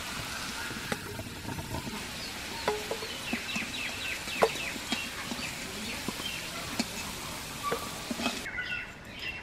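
Metal spatula clinking and scraping against an aluminium kadai as fried potato pieces are lifted out into a steel bowl, a few sharp clinks scattered through. Fowl clucking in the background.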